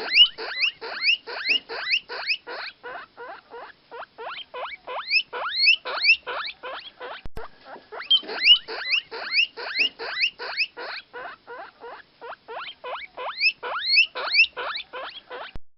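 Baby chicks peeping: a continuous stream of short, rising peeps, about four a second.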